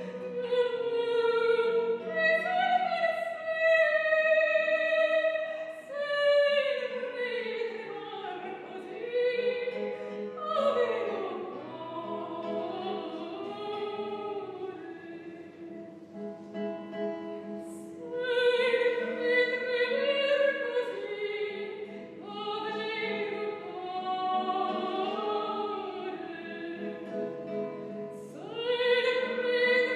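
Female classical voice singing an Italian art song in operatic style, with wide vibrato on held notes, over a classical guitar accompaniment. The singing softens for a few seconds in the middle before rising to full voice again.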